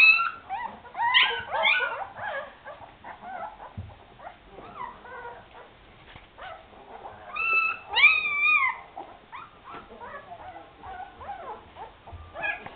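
Young Afghan Hound puppies whimpering and squealing: many short, high-pitched cries, a cluster of them at the start, and the loudest, a longer arching whine, about eight seconds in.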